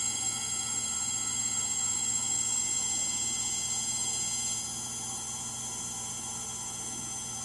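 Frigidaire Gallery GLTF1670AS1 front-load washer in its final spin: a steady whine over a hum, with the motor's bearings bad. It gets a little quieter about four and a half seconds in.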